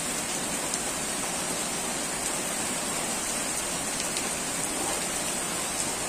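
Steady rain falling, an even hiss with a few sharp ticks of drops.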